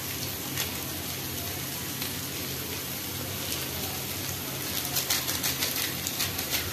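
Onion-tomato masala frying in oil in a steel kadhai, a steady sizzling hiss. From about five seconds in, quick crackles and pops.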